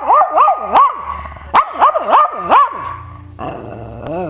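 Pug "talking": a run of short, pitch-swooping barks, about six in the first three seconds, then a quieter, lower grumble that rises in pitch near the end.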